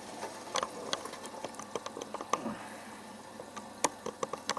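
Electra ELEC1647A3 washing machine on its last rinse: water sloshing in the drum, with scattered sharp clicks and knocks.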